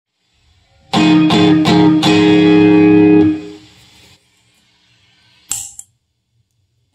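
Electric guitar played through a germanium-transistor Fuzz Face–style fuzz pedal: four quick chord strums about a second in, the last one left to ring and fading out by about four seconds. A short sharp click near the end as the pedal's footswitch is pressed.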